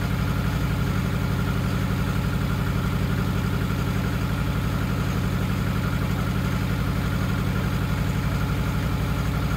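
Nissan Pulsar GTiR's SR20DET turbocharged four-cylinder engine idling steadily while still warming up.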